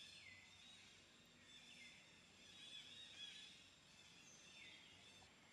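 Faint tropical forest ambience: a steady chorus of high chirring calls, with a call sweeping downward in pitch three times.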